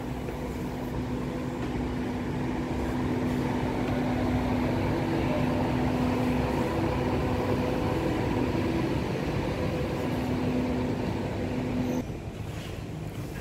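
Steady mechanical hum with a low droning tone over a background of noise, cutting off suddenly near the end.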